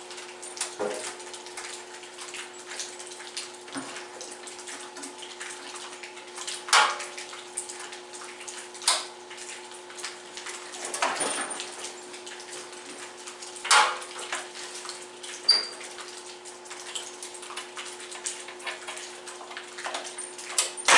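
A steady hum with scattered clicks and knocks, then right at the end the freshly repaired Simplicity garden tractor's engine fires up and runs.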